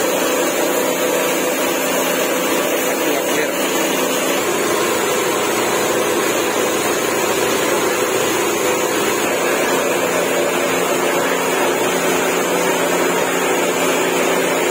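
Steady, loud workshop machine noise: a continuous hiss with a low hum that holds unchanged throughout.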